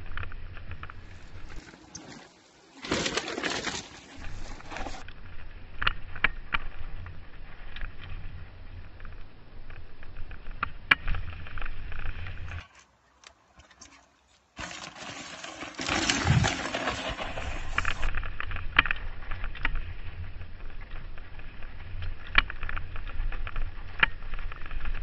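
Mountain bike riding down a rocky dirt trail, heard from a helmet-mounted camera: wind rumbling on the microphone, with the bike clattering and rattling over stones. The sound drops out briefly twice.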